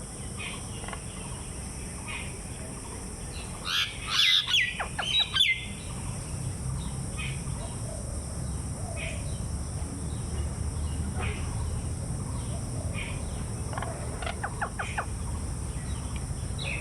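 Birds chirping and calling in short scattered notes, with a loud cluster of rapid calls about four seconds in.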